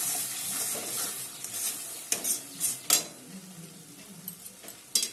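Metal spatula stirring and scraping thick masala paste in a metal kadai while it sizzles in oil, with a few sharper scrapes about two and three seconds in. The oil has separated from the masala, the sign that it is fully fried.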